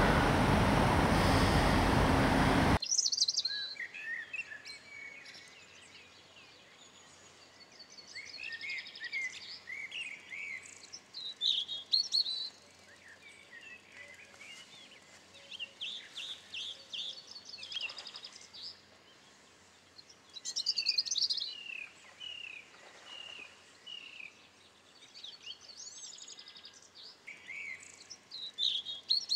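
Loud wind noise buffeting the microphone for about the first three seconds, cutting off suddenly. Then several small birds chirping and singing in short trills and whistled phrases that come and go.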